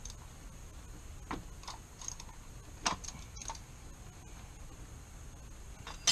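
Scattered small metallic clicks and clinks of a hand tool worked on a motorcycle's spin-on oil filter as it is snugged down, ending with a sharp ringing metal clink.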